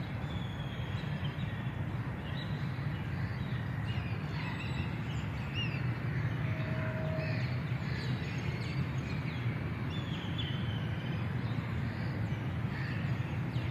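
Outdoor park ambience: small birds chirping here and there over a steady low rumble, with one brief steady note about halfway through.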